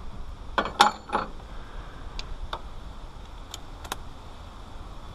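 Metal tools and small parts being handled: a quick cluster of clinks and clatter about a second in, then a few scattered light clicks.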